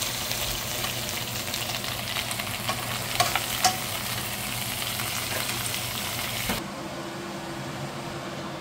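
Sauce-glazed pork back ribs sizzling as they fry in a nonstick frying pan, with a few sharp clicks of metal tongs turning them a little past three seconds in. The sizzling cuts off suddenly about two seconds before the end, leaving a steady low hum.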